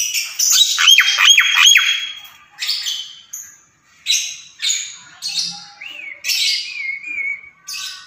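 Caged Javan myna chattering: a run of harsh squawks, with three quick falling whistled notes about a second in and a wavering whistle near the end.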